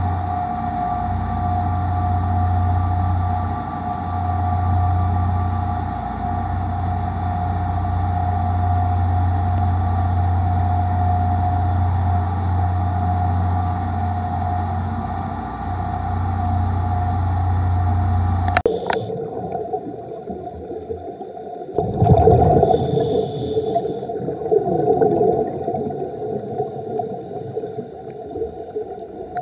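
Outboard motors of a dive boat running steadily at speed, a deep even drone with a steady hum above it. After about 18 seconds this gives way to underwater sound: gurgling scuba bubbles, with a loud rush of bubbles a few seconds later.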